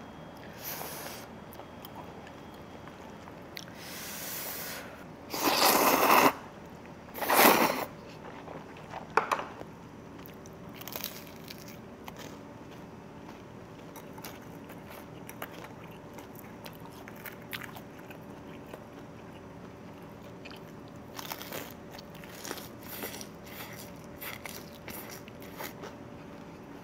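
A person eating jjamppong (spicy seafood noodle soup): two loud noisy bursts about five and seven seconds in, then quieter chewing with small clicks.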